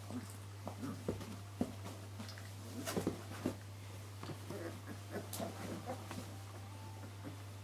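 Greater Swiss Mountain Dog puppies licking and grooming each other: scattered wet licking and smacking clicks and rustling on bedding, busiest about three seconds in, with a few short faint squeaks.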